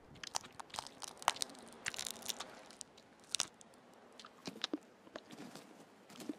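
Arctic wolves chewing and tearing at a freshly killed Arctic hare: irregular sharp crunches and bites.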